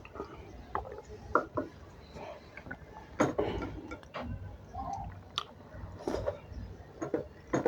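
A person eating close to the microphone: chewing a wet meal of rice and curry, with mouth smacks and clicks at irregular intervals.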